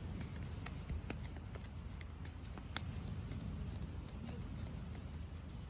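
Irregular light clicks and small rustles from small objects being handled, over a steady low rumble.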